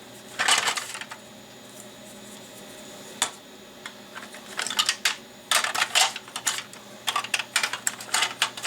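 Plastic battery adapter shells being handled: a short clatter just after the start, a single click about three seconds in, then a run of quick, irregular clicks and taps through the second half.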